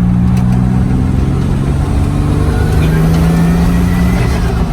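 Turbocharged V6 of a Nissan 300ZX (Z31) running at a steady cruise, its note easing off about four seconds in, with a faint rising whistle in the middle.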